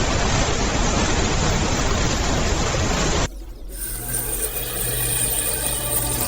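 Steady rushing noise that cuts off abruptly about three seconds in, followed by a quieter steady hum made of several held tones.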